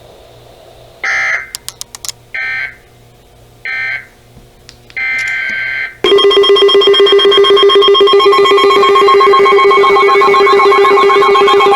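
Emergency Alert System data bursts: three short bursts of buzzing digital tone, about a second and a half apart, which close an alert as its end-of-message code, then a longer burst. About halfway through, a loud electronic alert tone of several steady pitches starts, pulsing quickly, and holds.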